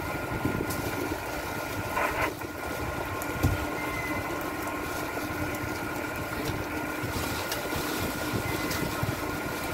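Fishing boat's engine running with a steady hum, with a brief rasp about two seconds in and a thump a little later as the crew work the purse-seine net.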